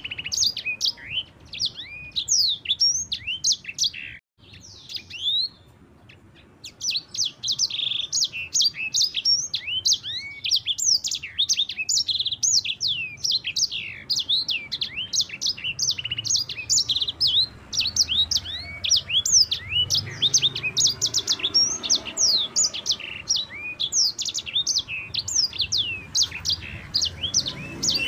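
Yellow-fronted canary (sanger) singing a fast, rolling song of high, sweeping chirps. It breaks off briefly about four seconds in, then runs on in a long, unbroken stream.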